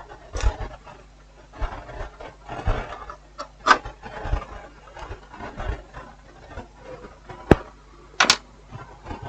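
Scattered small clicks and knocks with light rustling as the tactile push switches of a TV's button board are handled and checked; the sharpest clicks come a little under 4 s in and twice near the end.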